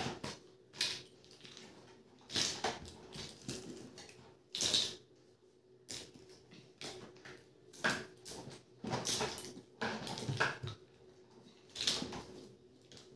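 Plastic toys clattering and rustling as they are handled and dropped into a bag and a plastic tub, in short irregular knocks and rustles a second or two apart.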